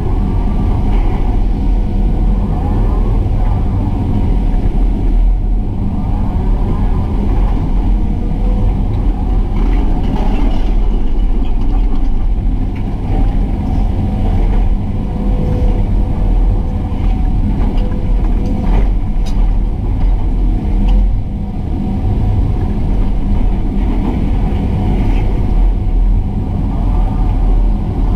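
Excavator's diesel engine running steadily under load, its note rising and falling slightly as the hydraulics work while it spreads and levels fill material. A few sharp knocks come about two-thirds of the way through.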